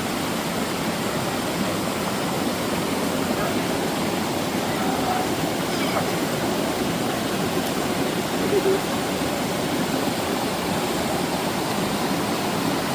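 Stream water running, a steady even hiss.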